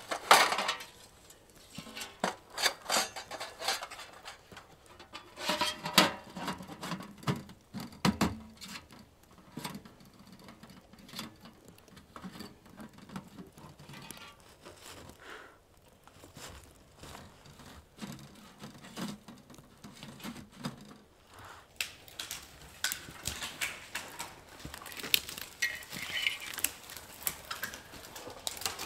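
Irregular knocks and clinks of camp gear being handled, some clusters louder than others, growing busier near the end.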